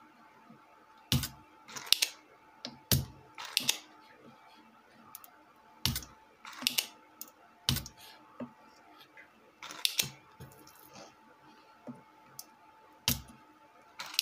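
Spring-loaded desoldering pump being cocked and fired, an irregular series of sharp clicks and snaps about a second apart, some with a dull thud, as solder is sucked off a chip's pins on a circuit board.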